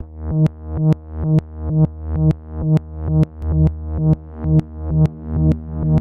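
Electronic dance music: a synthesizer chord over a deep bass that swells and drops on every beat, about two beats a second, with a sharp click marking each beat. It starts suddenly at the beginning.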